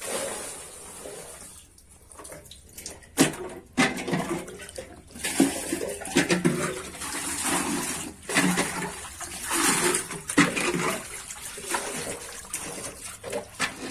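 Water splashing and sloshing in irregular bursts, with sudden splashes every second or two.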